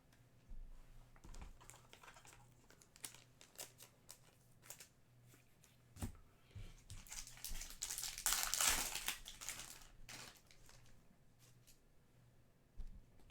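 Trading-card pack wrapper crinkling and cards being handled, with small clicks throughout and a louder crinkle about eight to nine seconds in.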